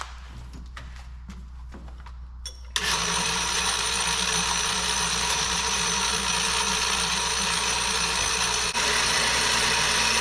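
Electric drill starts about three seconds in and runs steadily, its motor whining as it drills a handle pin hole through a forged Damascus steel knife blank. Its sound shifts slightly and grows a little louder about a second and a half before the end.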